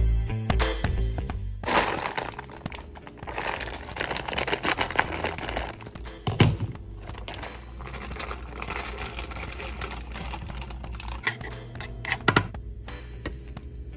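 Background music, with a plastic bag of broccoli florets crinkling as it is handled for several seconds, and a couple of sharp knocks near the end.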